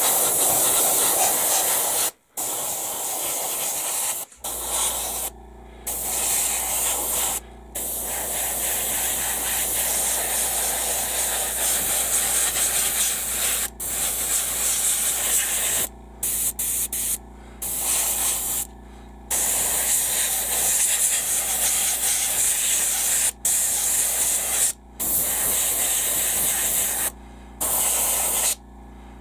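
Airbrush spraying primer: a steady hiss of air and paint, stopped by a dozen or so short breaks as the trigger is let off and pressed again. A low steady hum sets in about four seconds in.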